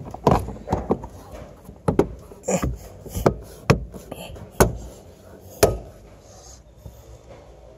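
Beige plastic toolkit access cover in a Mitsubishi Xpander's cargo-area side trim, pressed and tapped back into place by hand: a series of about seven sharp plastic knocks and clip snaps that stop a couple of seconds before the end.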